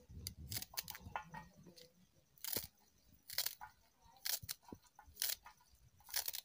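Knife slicing through crisp green garlic stalks, a short crunchy cut about once a second.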